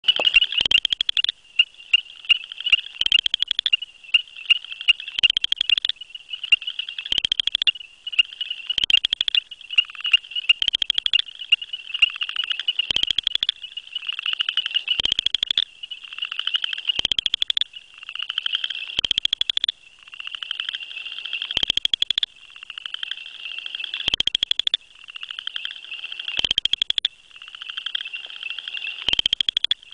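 Southern chorus frog (Pseudacris nigrita) male calling: a rapid, rattling pulsed trill of under a second, repeated every two seconds or so. A continuous high-pitched background chorus runs beneath it.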